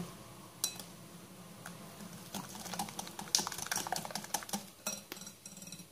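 Wire balloon whisk beating a liquid egg, sugar and oil mixture in a glass bowl: a quick, irregular run of light clicks and taps as the wires strike the bowl, busier from about halfway through.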